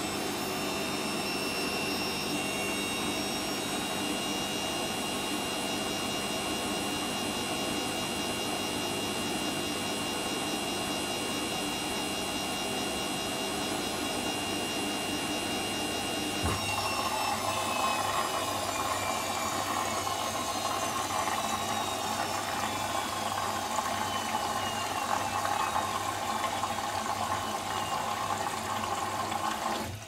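Bosch Maxx 5 washing machine running a steady motor whine that, about halfway through, starts to fall slowly in pitch as the drum winds down. At the same moment the water inlet valve opens with a low hum and water rushes into the drum, filling for the final rinse.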